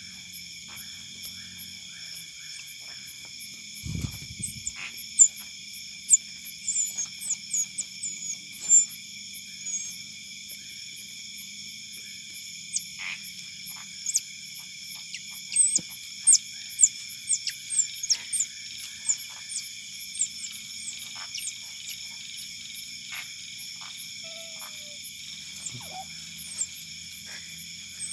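Otters giving short, very high chirps that slide down in pitch, in quick runs, over a steady chorus of night insects. A single low thump comes about four seconds in.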